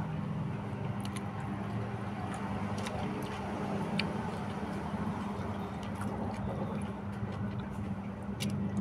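A steady low mechanical hum, like a motor or engine running, with a few faint soft clicks of fingers picking at fried salted fish and rice on a paper-lined plate.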